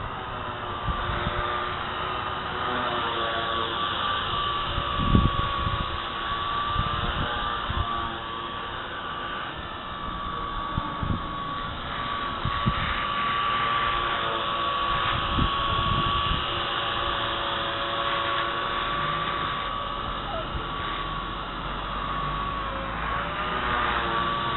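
Radio-controlled helicopter flying: a steady high whine from its motor and rotors that wavers slightly in pitch, with gusts of wind buffeting the microphone.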